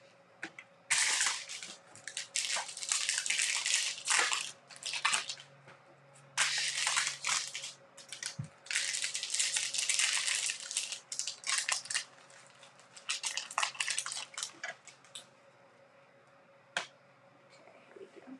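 Baseball card pack wrappers being torn open and crinkled by hand, in a string of crackling bursts with short pauses between them. The crackling stops near the end, followed by a single tap.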